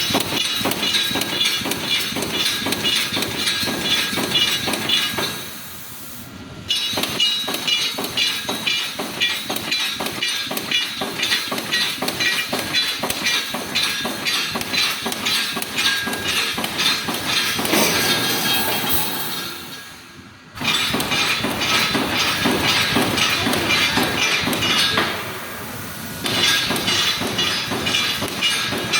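Wire mesh welding machine for bed mesh running through its welding cycle on 3 mm wire: a rapid, steady clatter of repeated strokes that drops away briefly a couple of times.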